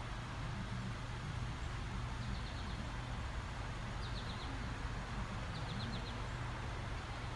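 Steady low rumble and hiss of an approaching train, still far down the line. A bird gives three short, quick runs of high chirps.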